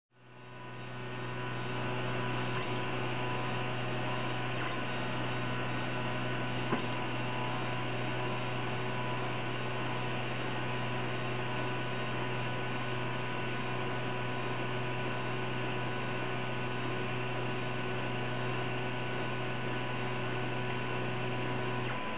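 Steady electrical hum from a powered-up Prusa i3 3D printer standing still, with several fixed steady tones over it, fading in over the first couple of seconds. One faint click about seven seconds in.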